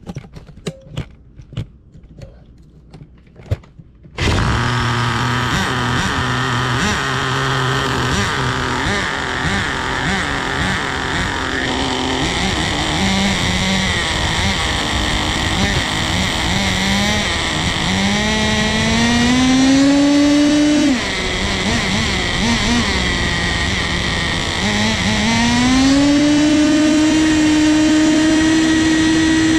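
A few light clicks, then about four seconds in a nitro RC car's small two-stroke glow engine, fitted with a miniature turbo kit, is suddenly running. It buzzes at a steady speed, then twice revs up in a rising whine and holds high as the car drives off, dropping once in between. The owner thinks it sounds like it bogs at full throttle, perhaps from too much fuel.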